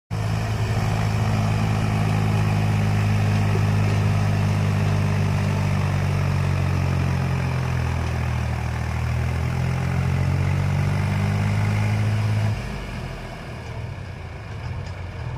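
Heavy diesel engine running hard under load, a steady deep drone, as a loaded tractor or backhoe struggles to climb a slope. About twelve seconds in it drops sharply to a quieter low running as the throttle comes off.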